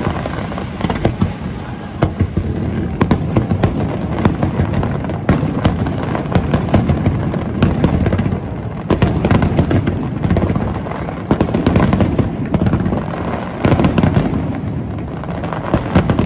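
Fireworks display: a continuous barrage of bangs and crackling bursts, many close together, over a steady low rumble of booms.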